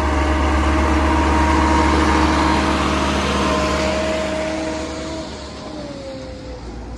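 Farm tractor's diesel engine running steadily as it drives past close by, hauling a trolley loaded with sand. The sound fades about five seconds in as the tractor pulls away, and its note drops slightly.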